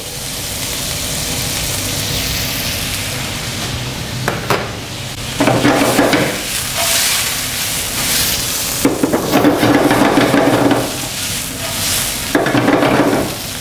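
Duck breast slices and vegetables stir-frying in a hot wok: a steady sizzle that swells into louder bursts of hissing and scraping three times as the wok is tossed, about five and a half, nine and twelve seconds in.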